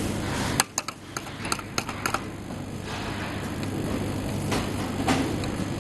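Light, sharp clicks and taps, a quick cluster in the first two seconds and two more near the end, over a steady hum and hiss. They come from handling a soldering iron on a printer circuit board.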